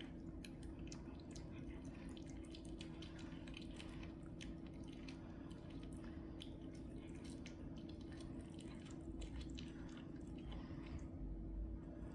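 Two cats chewing and biting raw chicken carcass, bones included: irregular wet crunches and clicks that thin out near the end.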